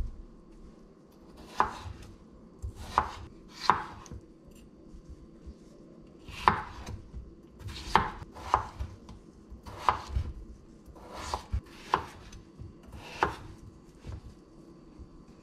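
Chef's knife cutting peeled raw potatoes into cubes on a wooden cutting board: about ten separate knocks of the blade through the potato onto the board, roughly a second or so apart.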